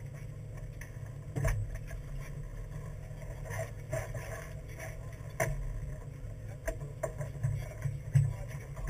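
Low, steady rumble of a fishing boat's idling engine, with a few sharp knocks and clunks from the deck.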